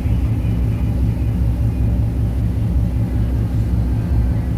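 Volvo engine running steadily with a loud, low, even drone, while it is being checked for a knocking sound.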